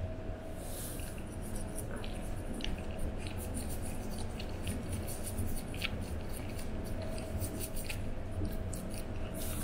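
Toothbrush bristles scrubbing a dog's teeth: short, irregular scratchy strokes over a faint steady hum.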